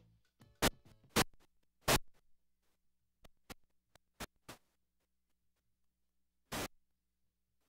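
A string of short, sharp bursts of static-like noise, irregularly spaced, with near silence between them. There are about eight in the first five seconds, three of them loud, then one longer burst near the end.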